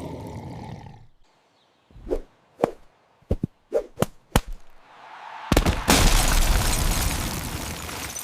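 Sound effects: a rushing noise fading out, then a quick run of about eight sharp knocks, then a sudden loud rushing burst that slowly dies away over about three seconds.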